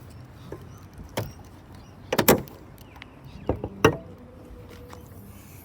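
A car bonnet being released and opened on a Holden VF Commodore: a knock about a second in, then a loud cluster of clunks and clicks from the latch and bonnet just after two seconds, and two more clunks near four seconds.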